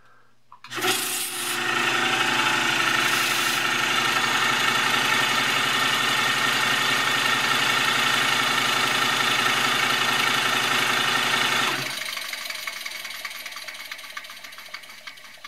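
The inside cylinders and valve gear of a 16 mm scale Hunslet 0-4-0 saddle tank model locomotive, running fast and unloaded on compressed air. It makes a steady, rapid buzz of exhaust beats with hissing air, which starts abruptly just under a second in, drops suddenly about twelve seconds in, then fades away as the engine runs down.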